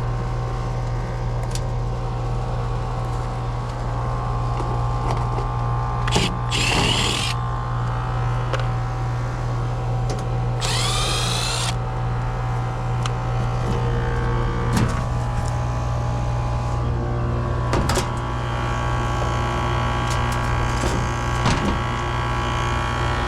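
Air-conditioner condenser unit running with a steady electrical hum. Twice, about six and about ten and a half seconds in, a brief high-pitched wavering screech: the screeching the owner reported, from a unit whose fan motor is running very hot.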